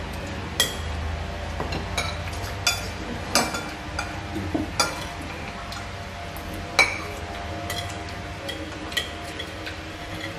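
Spoons and forks clinking and scraping against ceramic plates and bowls as several people eat. The clinks are irregular and sharp, the loudest one about seven seconds in.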